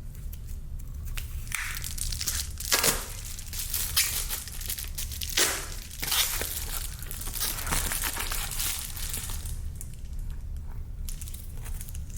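Plastic packaging crinkling and rustling in irregular bursts as a new replacement gear is unwrapped and handled, over a steady low hum.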